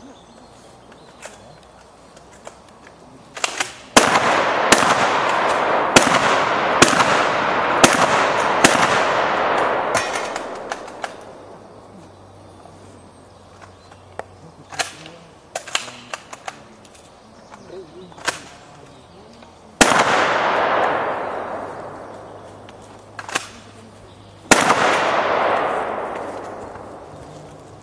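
Shotgun fired in a practical shooting stage: six shots in quick succession about four seconds in, then lighter clicks and pops, then two more single shots later on, each shot followed by a long echo that fades away.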